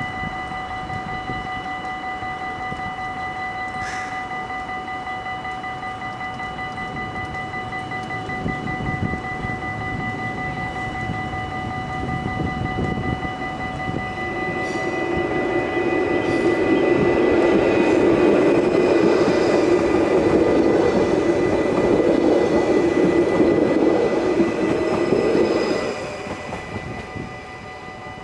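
Level-crossing warning bells ringing steadily with high electronic tones, while a Stadler FLIRT electric train approaches and passes over the crossing. Its running noise builds from about eight seconds in, is loudest over the second half, and drops off sharply a couple of seconds before the end as the train clears.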